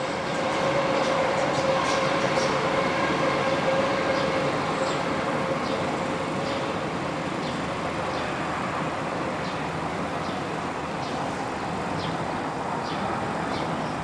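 Renfe Cercanías electric commuter train running past, a steady rolling noise with a held tone that fades about halfway through and a run of light clicks about every half second.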